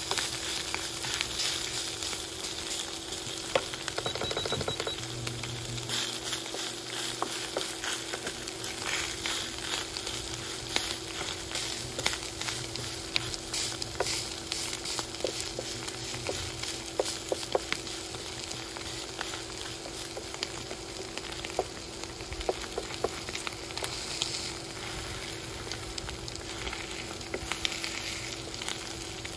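Sliced roasted beef sizzling in a stainless steel frying pan as a wooden spatula stirs and scrapes it, with frequent short clicks of the spatula on the pan over a steady hiss and a faint steady low hum. The beef is being dry-fried to cook off its water.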